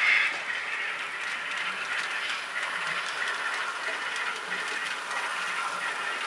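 Model diesel switcher locomotive running along the layout track pulling a string of cars: a steady rolling mechanical noise with faint, regularly spaced clicks.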